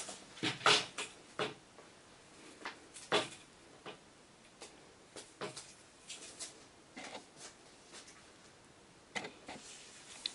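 Irregular clicks, knocks and rustles from handling a Roman blind and its top rail on a table, the loudest few near the start and about three seconds in.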